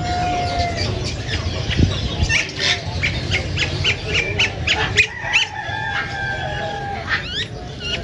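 Many caged parrots, among them Alexandrine parakeets, calling together: a rapid run of short, sharp, high squawks and chirps, thickest in the middle, with a few longer held whistles. A low steady background rumble runs under them.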